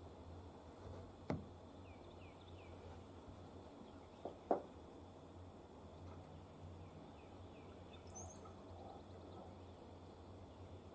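Faint outdoor quiet with small birds chirping now and then, a short run of chirps about two seconds in and a high twitter near the end. Three sharp clicks or knocks stand out, one just over a second in and a close pair around four and a half seconds.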